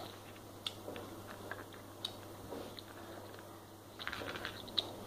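Someone chewing a jelly bean: soft, sticky mouth clicks now and then, thickening into a short run of clicks about four seconds in.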